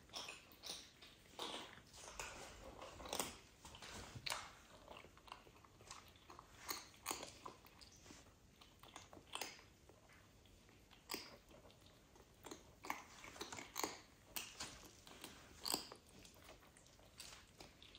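Cats grooming themselves: faint, irregular licking and nibbling at fur, a string of small wet clicks and smacks.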